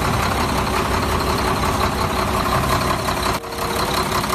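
Diesel engine of a heavy three-axle dump truck running steadily at idle while its tipper body is lowered, with a brief drop in the sound about three and a half seconds in.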